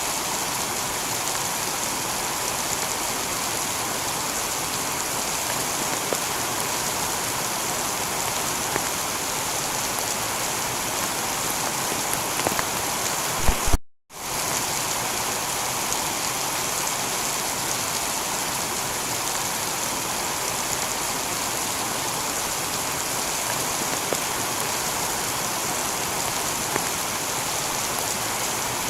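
Steady heavy rain pattering on a tiled roof. A few seconds short of halfway there is a short low knock, and the rain cuts out for a moment, then carries on as before.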